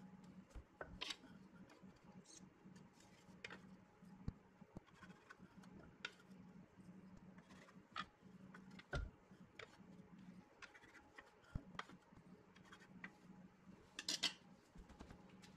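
Quiet handling of a wooden blank and a plastic centre-finder template: scattered light clicks and taps, a low thump about nine seconds in, and a brief cluster of clicks near the end as the block is set down on the lathe bed, over a faint low hum.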